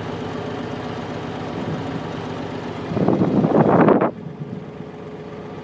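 Canal narrowboat's engine running steadily, with a much louder, noisier rush about three seconds in that lasts about a second and cuts off suddenly.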